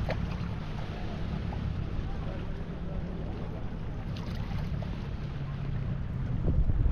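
Wind blowing on the microphone over the wash of calm sea water among shoreline rocks, the gusts getting stronger near the end.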